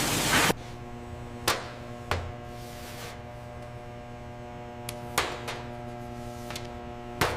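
A steady electronic-sounding hum of several held tones, with a few sharp clicks or hits spaced one to three seconds apart; a loud rushing noise cuts off about half a second in.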